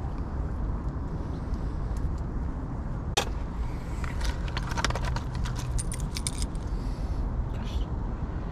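Small clicks and light rattles of carp rig tackle being handled over a plastic rig box, coming in a quick cluster about three to six and a half seconds in, over a steady low rumble.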